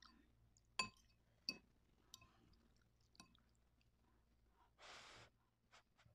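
Mostly quiet: a fork clinks lightly twice against a clear plastic bowl of instant noodles as they are stirred and lifted, followed by a short puff of breath about five seconds in.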